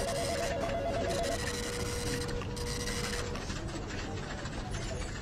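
Office ambience: a printer running with dense rapid clicking and hiss that dies away about three seconds in, while a telephone trills briefly at the start.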